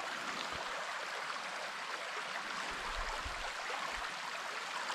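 Steady rushing hiss of a stream's running water.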